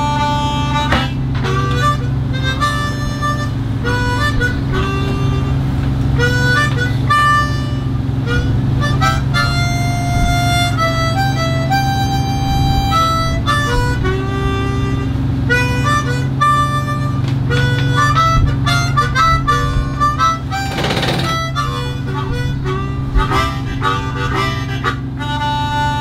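Harmonica playing a slow melody of single held notes over a steady low hum.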